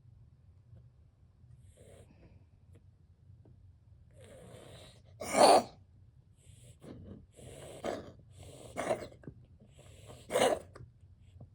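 A domestic cat coughing in a series of harsh, sudden hacks, the loudest about halfway through, with breathy sounds between them. The cough comes from a lung infection of unknown cause.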